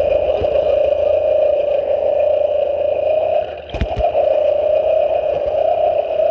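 Motorized bicycle kit engine running steadily with a high, buzzy note while the bike is ridden. The note drops briefly a little past halfway, where two sharp knocks are heard, then picks back up.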